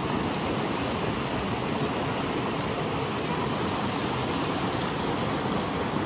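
Mountain stream rushing steadily over a small rocky cascade.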